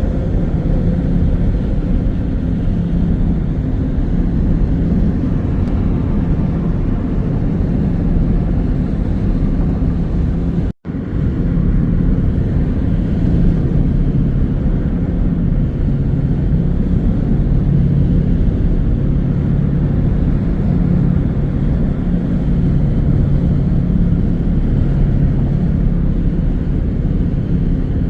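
Car driving at speed: a steady drone of tyre and engine noise that cuts out for a moment about eleven seconds in.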